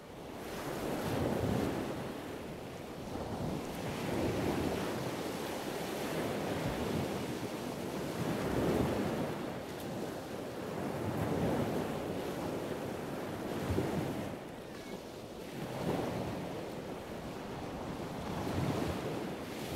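Wind buffeting the microphone over surf on an open beach, a steady rushing noise that swells and fades every two to three seconds.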